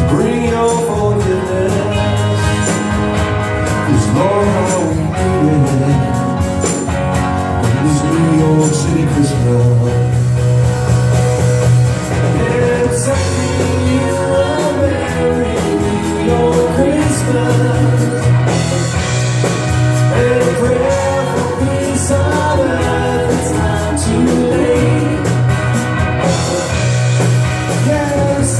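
A live band playing an upbeat rock-style song with a steady drum beat and a melody line over it.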